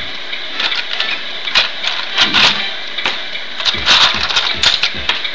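Small electric hydraulic pump of an RC garbage truck running with a steady high whine, with scratchy noises at uneven intervals over it, loudest about two and a half and four seconds in.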